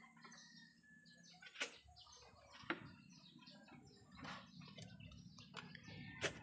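Faint knocks and creaks of bamboo stair and floor slats underfoot, with a few sharp clicks, over a quiet low background.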